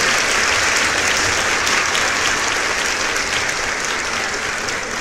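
Crowd applauding, dense steady clapping that slowly fades.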